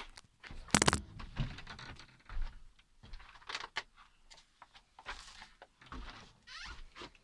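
Irregular handling noises close to the microphone: knocks, rattles and rustling, loudest in a short rattling burst about a second in.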